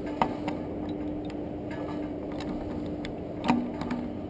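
Scattered metal clicks and taps from hand tools working on a gas water heater part, over a steady low hum. The loudest knock comes about three and a half seconds in.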